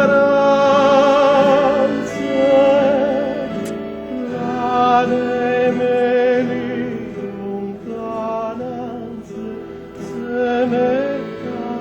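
Classical, opera-style solo singing: long held notes with wide vibrato over a steady instrumental accompaniment.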